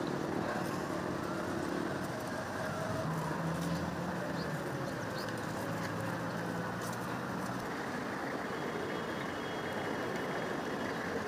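Military vehicle engines running with a steady low hum over general outdoor noise; the hum shifts in pitch about three seconds in.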